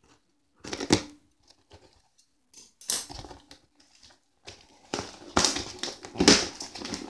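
Hands working open a taped cardboard shipping box: irregular bursts of cardboard rustling and scraping with packing tape tearing, denser and louder in the second half.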